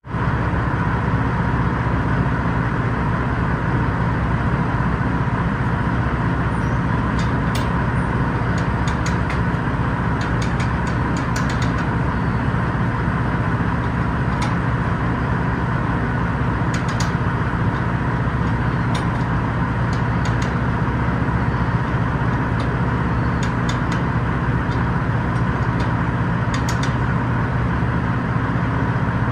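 Steady loud drone of machinery in a grain elevator's unloading shed, with a constant low hum. Scattered light clicks and clanks come through as a hopper-bottom trailer's gate is worked open by hand.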